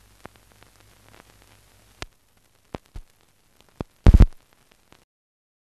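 Faint hiss with scattered crackles and pops from an old silent film's blank sound track, a few sharp clicks, and a loud short thump about four seconds in; it then cuts off suddenly to silence.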